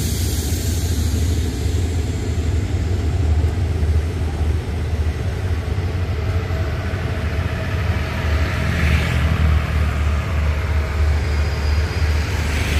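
Diesel-electric locomotive engine of SRT GEA-class locomotive 4548 running with a steady low hum.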